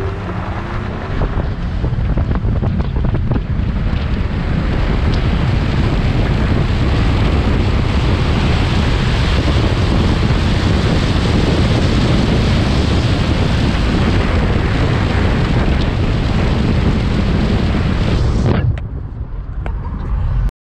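Wind buffeting the microphone in an open-top convertible at speed, a steady heavy rush. It drops away suddenly near the end.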